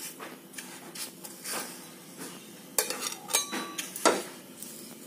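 Metal spatula scraping and tapping on a nonstick frying pan, then clanking knocks of the pan being turned upside down onto a gas burner, with a brief metallic ring in the middle and the loudest knock about four seconds in.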